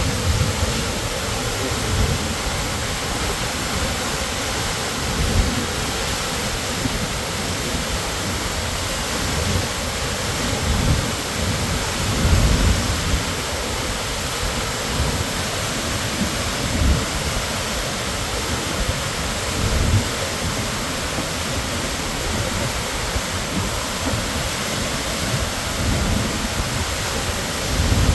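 A large waterfall, Sahalie Falls' 100-foot plunge, rushing in a steady, dense hiss of falling water, with deep low rumbles swelling now and then.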